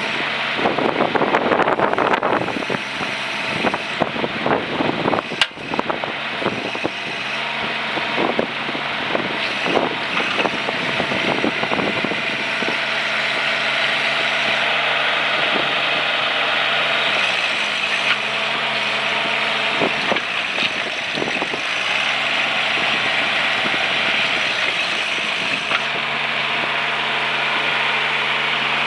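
AGT NT18K mini excavator's engine running steadily, its pitch dipping briefly twice about two-thirds of the way through. Clanks and knocks in the first few seconds, with one sharp knock about five seconds in.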